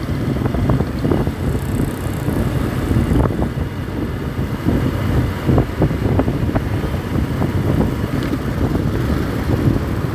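Motorcycle riding at road speed: wind buffeting the microphone over the engine and road noise, a steady, jittery rumble.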